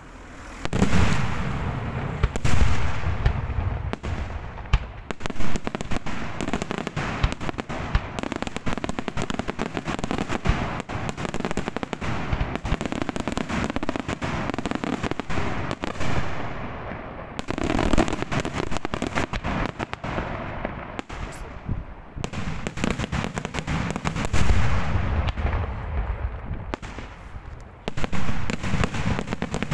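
Daytime aerial fireworks display: a rapid, nearly continuous barrage of sharp cracking reports that starts about half a second in, with heavier booms several times along the way.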